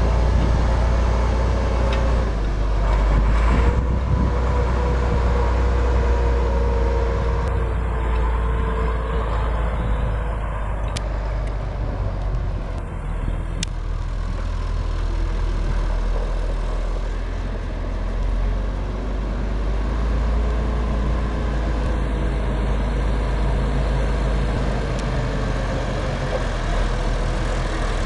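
Massey Ferguson 1135's Perkins six-cylinder 5.8-litre turbo diesel running steadily as the tractor drives off, turns and comes back at low speed.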